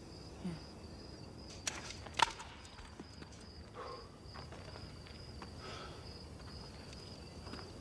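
Crickets chirping steadily in a night-time ambience, with a few soft knocks, the sharpest about two seconds in.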